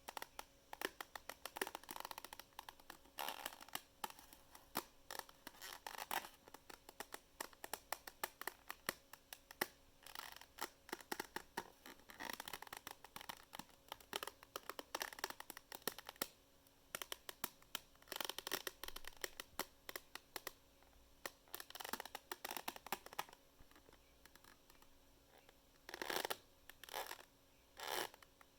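A takeout container squeezed and flexed by hand, giving dense crackling creaks in repeated bouts a second or two long; the sound is like wood creaking and groaning.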